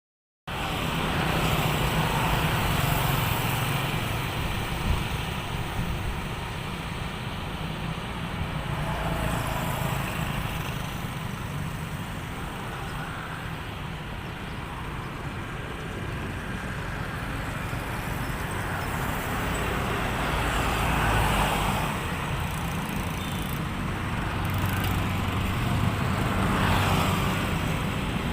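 Steady road traffic: a continuous rumble of engines and tyres, with several vehicles swelling louder as they pass and then fading.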